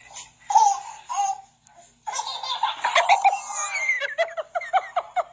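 A baby laughing: a few short giggles in the first second or so, then from about two seconds in a long run of laughter that breaks into quick rhythmic pulses near the end.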